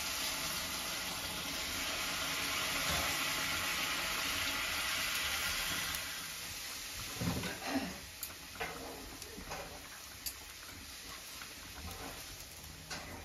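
Water poured from a steel bowl into a wok of frying potatoes, hitting the hot oil with a steady sizzling hiss for about six seconds. It then settles to a quieter simmer with a few short knocks and clicks.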